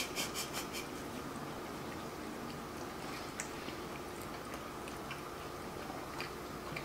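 People chewing mouthfuls of hot dog with faint wet mouth clicks. A quick run of about five sharp lip smacks comes right at the start, and a faint steady hum runs underneath.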